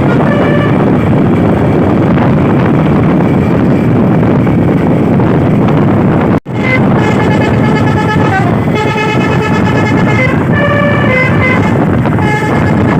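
A truck's telolet basuri v3 multi-trumpet horn playing its stepping tune over a loud, steady rush of engine and road noise. The sound cuts off abruptly about halfway, then the horn tune plays again for several seconds.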